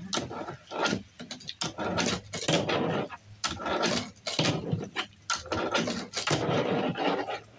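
Thin plastic candy-bar wrapper crinkling and crackling in irregular bursts as it is handled and pressed against a fingerboard.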